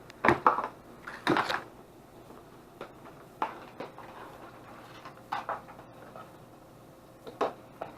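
Hard plastic packaging and camera parts being handled while unboxing an action camera: a series of separate clicks and knocks, the loudest two within the first second and a half, then sparser taps.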